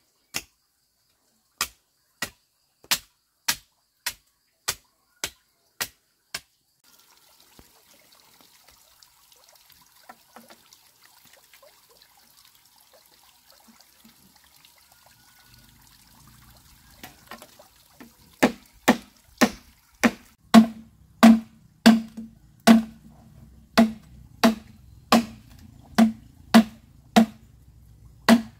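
Machete chopping a green bamboo pole: steady blows about one and a half a second, each with a hollow ring, starting a little past halfway. Earlier, a knife strikes a flattened bamboo board in quick, even, sharp knocks, followed by a quiet stretch.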